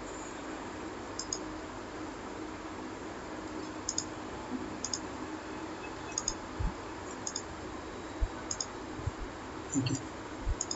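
Computer mouse button clicking, about eight times at irregular intervals, each click a quick press-and-release pair, over a faint steady hum. A few dull low thumps come in the second half.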